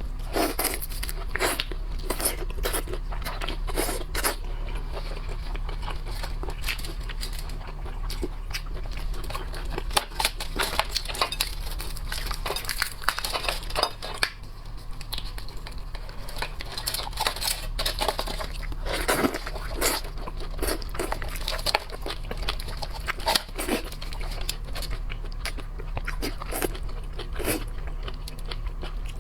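Close-up eating of shrimp and crab: shells cracking and tearing, with irregular crunching and chewing.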